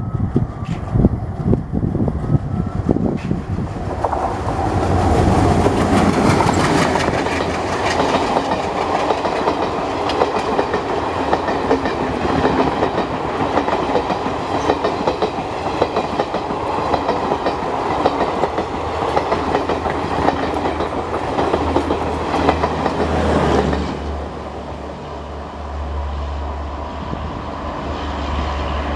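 WDM3A diesel-electric locomotive passing at speed, its engine rumble giving way to the clickety-clack of the coaches' wheels over the rail joints as the train rushes by. About 24 seconds in the sound drops to a quieter, steady low rumble of a train moving away.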